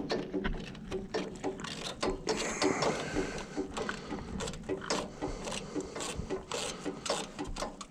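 Wood-Mizer LT35 HD sawmill's blade tensioner being cranked tight, a run of irregular mechanical clicks and ratcheting as the handle turns to tension a newly fitted band blade.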